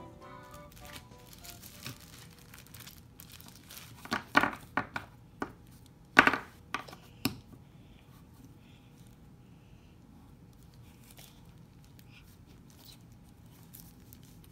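Packaging crinkling and being torn open by hand, with a run of loud, sharp crackles about four to seven seconds in.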